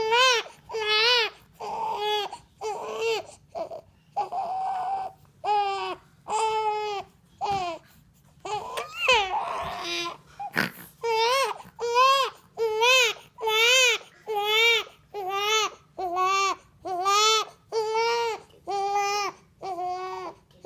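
A child crying in a long run of short, rhythmic wails, about one a second, each rising and then falling in pitch.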